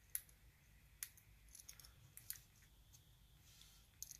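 Faint, sharp clicks from a hook pick working the pins of a Sparrows Revolver practice lock under tension. There are about half a dozen clicks, spaced a second or so apart, with a small run of them near the middle.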